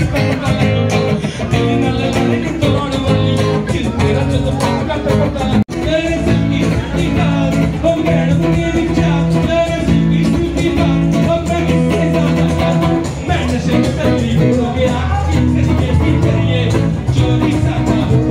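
Loud party music with singing and guitar over a steady bass line, with a split-second dropout about six seconds in.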